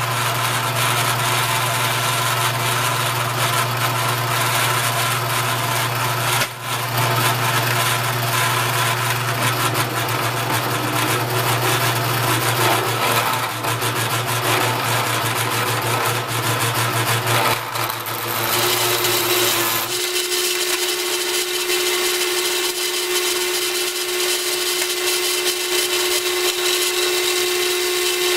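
Drill press running at about 1900 RPM, its small bit milling into mild steel: a steady machine hum with the noise of the cut. The hum changes character about twenty seconds in.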